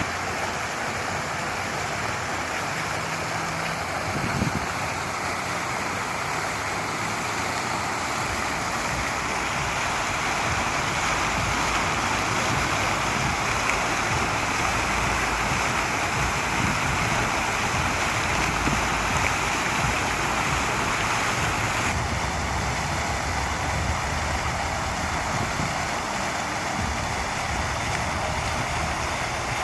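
Water fountain running, its falling water splashing in a steady, unbroken rush.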